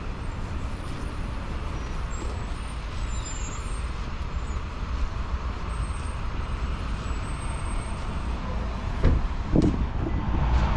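City street traffic: vehicles running steadily past, with two short loud knocks about nine seconds in.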